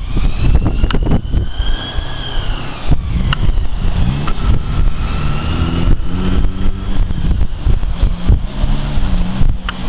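Strong wind buffeting the microphone as a steady low rumble. Under it, an engine's pitch rises and falls in the middle of the stretch, and faint high tones slide slowly up and down.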